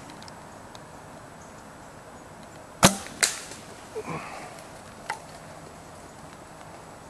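A bow shot: a sharp crack as the bowstring is released, then a second smack about half a second later as the arrow strikes the doe. Fainter knocks follow as the deer bolts.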